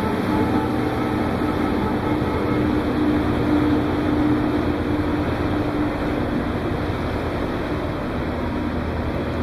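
Steady rumble with a faint droning hum from a large cruise ship under way, heard from its open deck.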